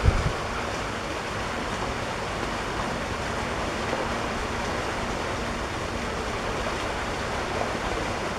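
Steady, even rushing noise with no breaks, and a short low thump right at the start.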